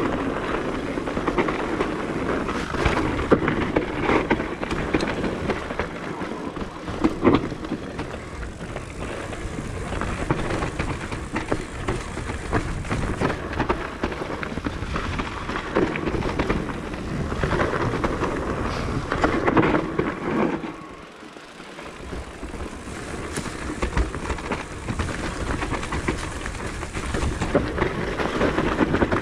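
Propain Ekano electric mountain bike riding along a dirt trail: tyres rolling and crunching over the ground, with a constant rattle and many small knocks from the bike over bumps. It goes quieter for a moment about two-thirds of the way through.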